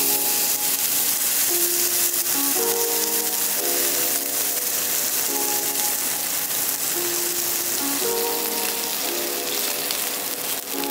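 Background music of soft, sustained chords that change every second or so, over a steady crackly hiss.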